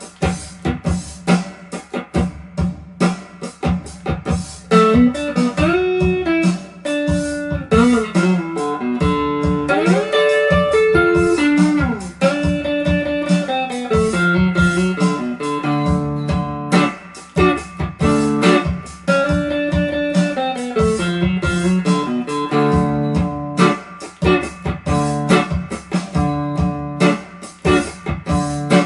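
Electric guitar played with a pick in standard tuning: a blues-rock intro riff of repeated low notes with sliding and bent notes, standing in for a slide-guitar part.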